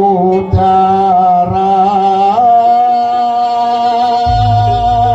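Ebeg accompaniment music: a long, wavering melodic note held over a steady drone, with a few low drum thuds in the first two seconds. A low buzzing tone comes in about four seconds in.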